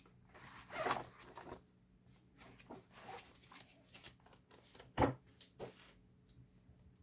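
Paper pages of a colouring book rustling as it is leafed through and handled, with a sharp knock about five seconds in and a smaller one just after as the book is put down.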